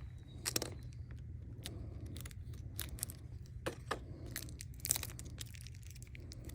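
Scattered light clicks, taps and rustling of small packaged items being handled and opened, over a steady low hum.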